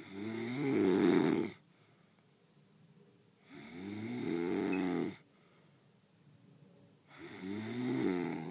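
A man snoring in his sleep: three long snores, each lasting about a second and a half, coming about every three and a half seconds.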